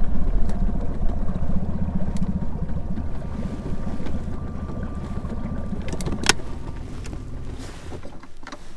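Boat motor running with a low, rapid pulsing rumble that starts abruptly and slowly fades, with one sharp knock about six seconds in.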